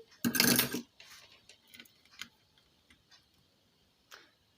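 A short loud scraping rustle near the start, then faint scattered clicks and taps and one sharper click near the end, from handling the ceiling fan's motor and test leads while its winding sections are checked.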